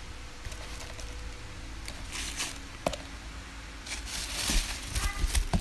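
Tissue paper rustling and crinkling as a slide sandal is handled in its box, with a sharp tap about three seconds in and louder rustling and bumps near the end.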